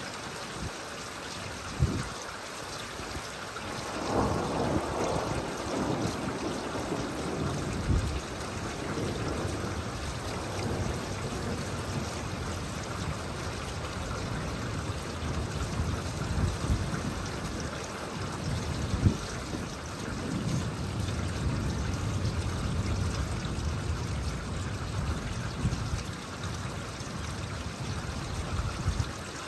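Steady rain falling, with low rolling thunder swelling up about four seconds in and again around twenty seconds in, and a few sharp taps.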